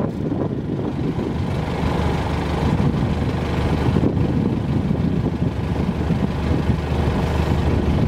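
Safari vehicle's engine running with a steady low rumble.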